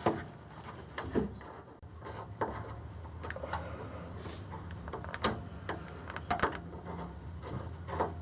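Scattered metallic clicks and scrapes of a fuel line fitting being worked by hand against a new canister fuel filter, the fitting not threading in cleanly. A low steady hum runs underneath.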